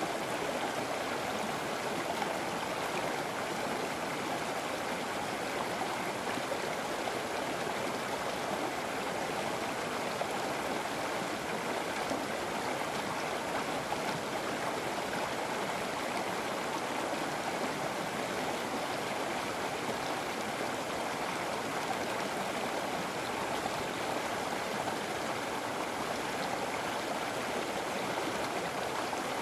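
River water flowing and rushing steadily in an even, unbroken stream.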